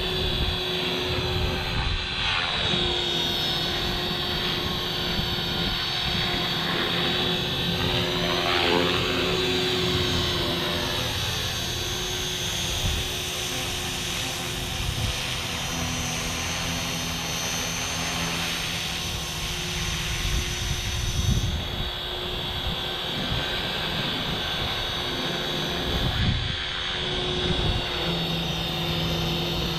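Electric Walkera V450D03 450-size RC helicopter in flight, its motor and rotor blades giving a steady high whine and buzz whose tone sweeps as it moves about. Wind buffets the microphone with a low, uneven rumble.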